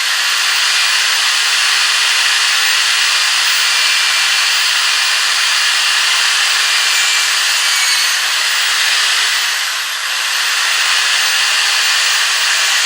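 Loud, steady hiss of compressed air rushing out, dipping briefly about ten seconds in.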